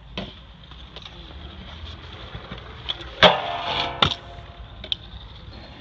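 Stunt scooter clattering on the skatepark's metal rail and concrete: a loud metallic hit with a brief ringing about three seconds in, then a second sharp knock about a second later.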